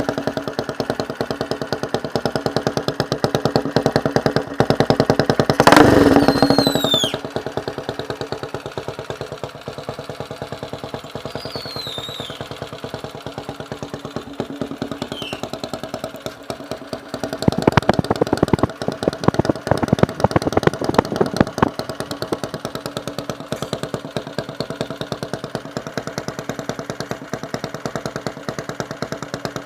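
Honda CG single-cylinder four-stroke motorcycle engine running through an aftermarket muffler, mostly idling, blipped up once about six seconds in and revved in a few short bursts around eighteen to twenty-one seconds.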